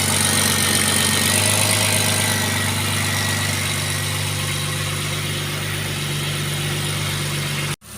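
Freshly rebuilt turbocharged engine idling steadily on its first start-up after the rebuild, with a thin high whine over the low running note. The sound cuts off abruptly near the end.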